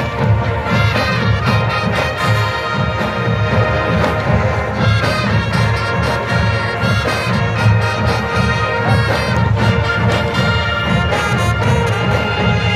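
A massed brass band playing loudly, trumpets and trombones in sustained chords over a pulsing low beat.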